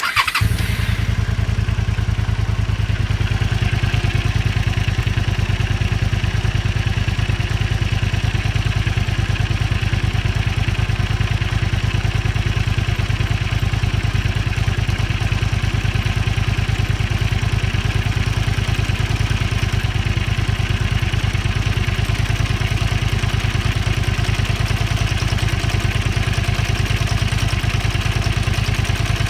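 Honda Xelvis 250's V-twin engine idling steadily with an abnormal rubbing noise, which the owner suspects is the cam chain rubbing because the cam chain tensioner isn't taking up the slack; the noise goes away once the engine warms up.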